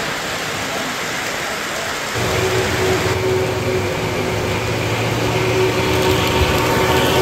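Three-rail O-gauge model freight train rolling on its track with a steady rushing clatter of wheels on rail. About two seconds in it gets louder as a smoking model steam locomotive comes up, and a steady hum joins the rolling noise.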